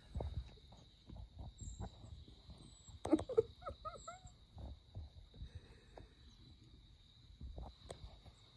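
Cats shuffling and pawing close to the microphone, with soft rustles and knocks, and a quick run of four or so short cat cries about three seconds in.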